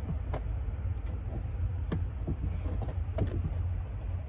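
A few short knocks and clicks, as from hive frames and a hive tool being handled, over a steady low rumble.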